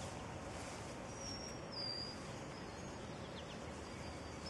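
A bird's thin, high whistled call about a second in, lasting under a second, over steady outdoor background noise, with a fainter call near the end.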